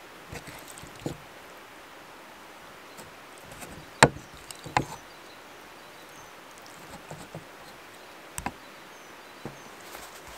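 A wooden spoon knocking and scraping against a metal pan as chicken sauté is scooped into pide bread: a few scattered sharp knocks, the loudest about four seconds in with another just after.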